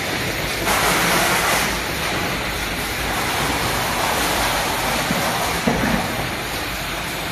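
Lozenge production and packaging line machinery running: a steady noisy drone with a low hum. A louder hiss lasts about a second near the start, and there is a short knock a little before six seconds in.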